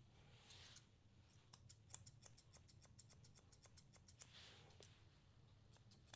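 Pet-grooming blending shears snipping through a small dog's fur, close and faint. There is a quick run of small clicks of the blades, several a second, through the first half, and a few more snips near the end.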